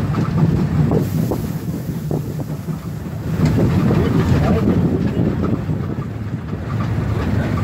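Steam locomotive working, heard from its cab as a loud, steady, deep rumble with scattered knocks. Wind buffets the microphone.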